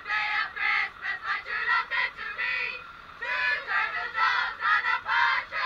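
A group of women's voices singing loudly together in short shouted phrases, with a brief pause about three seconds in.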